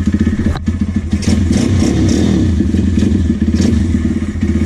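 Apollo 150 YX pit bike's single-cylinder four-stroke engine idling steadily, with a metallic rattle over it that the rider puts down to the footpeg.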